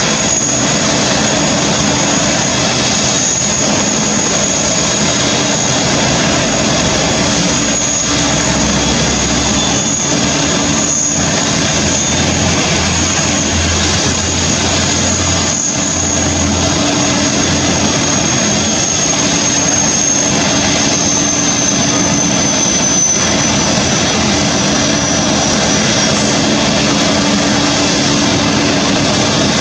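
Airbus A380 jet engines running steadily, a dense rush of noise with a high whine that drifts slightly lower in pitch about two-thirds of the way through.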